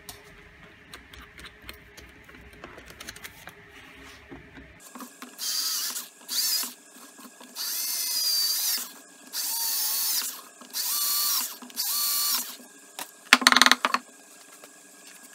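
A cordless drill drilling pilot holes in a wooden disc: six short runs of the motor, each spinning up and winding down, after some faint clicks as the bit is changed in the chuck. Near the end comes one loud, brief clatter, the loudest sound of the stretch.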